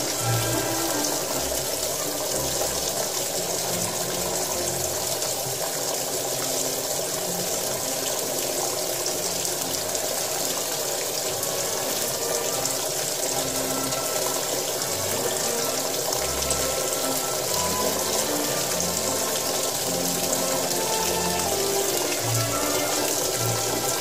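Water rushing steadily inside a Hitachi BeatWash 8 kg washing machine, with music playing over it.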